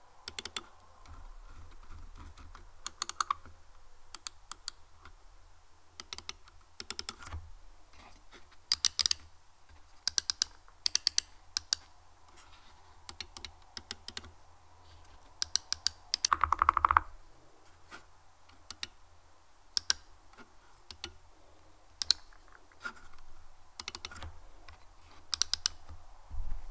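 Lofree HyPace mouse buttons clicking, mostly as quick press-and-release pairs about once a second, with a fast run of rapid clicks about sixteen seconds in.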